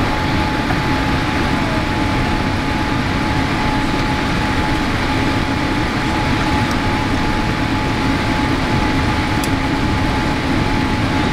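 Boeing 787 cabin noise on the approach to landing: a steady rush of engine and airflow noise heard from a window seat, with a faint steady high hum running through it.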